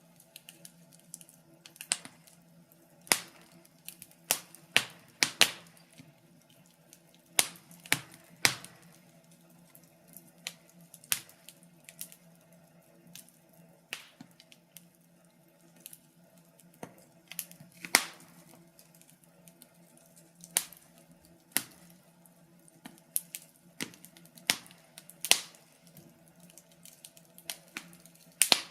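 Wood fire crackling: irregular sharp pops and snaps, some loud and some faint, over a faint steady low hum.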